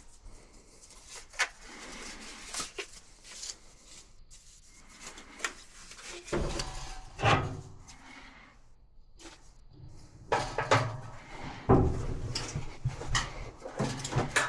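Irregular knocks, clicks and clatter of things being handled, busiest in the second half.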